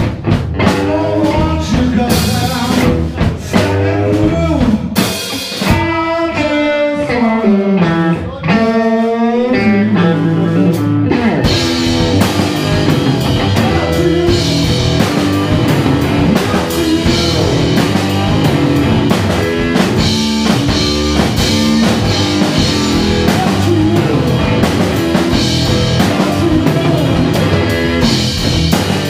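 Live electric blues-rock band playing: electric guitar, bass and drum kit. A lighter passage with bending, sliding melodic lines gives way about twelve seconds in to the full band driving hard with cymbals.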